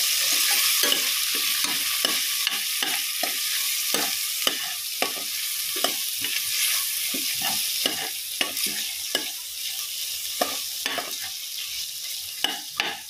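Fresh pigeon peas and spiced onion-tomato masala sizzling in oil in a steel pressure cooker while a steel spoon stirs them, scraping and clinking against the pot a few times a second. The sizzle slowly dies down.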